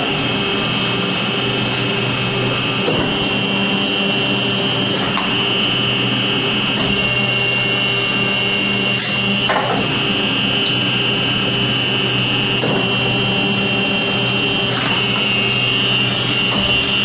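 H-type hydraulic plate-making press running: a steady motor-and-pump hum with a high whine. Short knocks every two seconds or so as the press cycles on each sheet.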